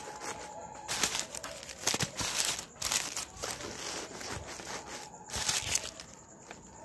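Packing material crinkling and rustling in irregular bursts as hands rummage inside a new PU leather tote bag.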